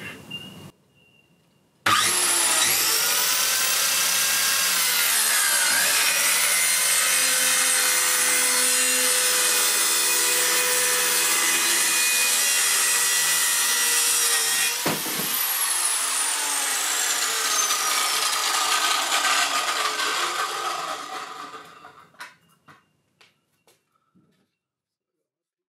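Handheld corded power saw cutting through plywood. The motor starts about two seconds in, runs steadily through the cut with a brief dip around the middle, and dies away after about twenty seconds, leaving a few light knocks.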